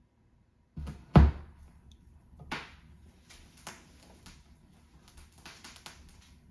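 Stylus of a Canary moving-coil phono cartridge dropping onto a vinyl record with a loud thud about a second in, then scattered pops and crackle from the lead-in groove over a faint surface hiss.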